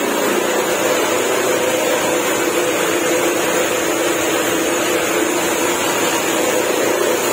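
Steady drone of running workshop machinery, an even rushing noise with a constant hum underneath.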